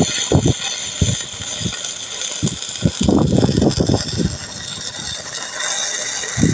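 Stick (shielded metal arc) welding on a steel pipe joint: the electrode's arc crackles and hisses steadily. Irregular low rumbles come and go, loudest near the start and around the middle.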